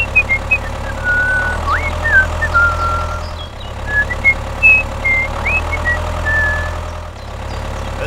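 A steady low engine hum, added as a tractor sound effect, with short rising whistles and chirps over it at irregular intervals.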